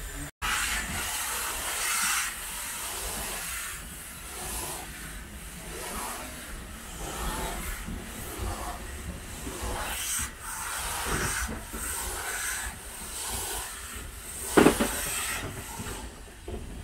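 SLM-built rack steam locomotive hissing steam, with irregular puffs of exhaust. A single loud, sharp sound stands out about three-quarters of the way through.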